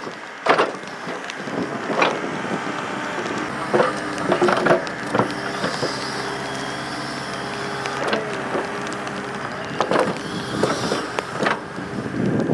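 Takeuchi TB285 mini excavator's 70-horsepower diesel engine running steadily under digging load. Its steel bucket gives several scattered knocks and scrapes as it bites into and scoops dirt and rocks.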